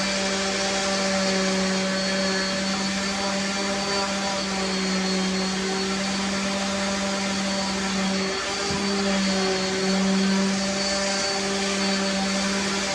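A steady electric motor hum over a rushing-air hiss, like a vacuum or fan motor, running without a break and wavering briefly near the middle.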